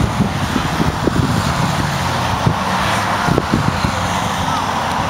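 Decorated advertising cars and float vehicles of a parade driving past along the road, their engines running steadily.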